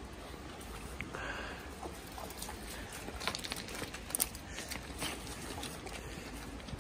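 Faint scattered clicks and knocks over a steady low rumble, with a couple of sharper knocks about three and four seconds in.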